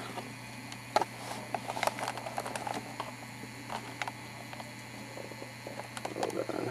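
A steady low electrical hum, with scattered light clicks and taps of handling noise as the camcorder moves.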